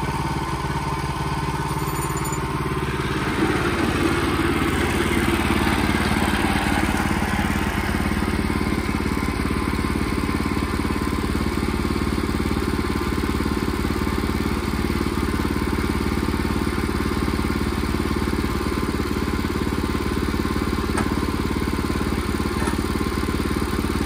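Portable band sawmill's small gasoline engine running steadily, a little louder for a few seconds from about three seconds in.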